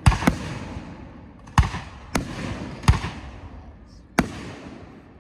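Fireworks bursting: six sharp bangs over about four seconds, the first two close together, each fading out slowly afterwards.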